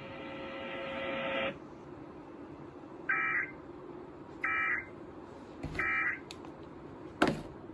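Emergency Alert System end-of-message data signal: three short identical bursts of warbling data tones, about a second and a half apart, marking the end of the tornado warning. Before them a steady buzzing tone cuts off after about a second and a half, and a sharp click comes near the end.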